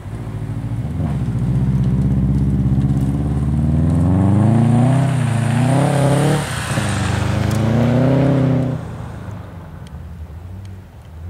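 Subaru Impreza WRX STI's turbocharged flat-four engine accelerating hard while towing a box trailer: the revs climb, drop briefly at a gear change about six and a half seconds in, climb again, then fade quickly as the car pulls away.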